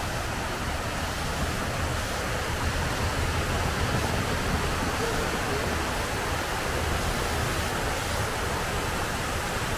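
Steady rush of water falling down the walls of the 9/11 Memorial reflecting pools.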